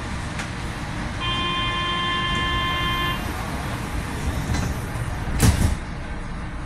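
Athens metro Line 2 train running, a steady low rumble inside the car. About a second in, a steady pitched tone sounds for about two seconds, and about five and a half seconds in a single loud bump is the loudest sound.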